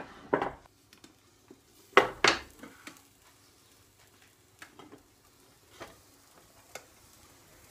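A frying pan and a china plate held together are flipped over and set down on a wooden chopping board, with two loud knocks about two seconds in and a few light taps and clinks after.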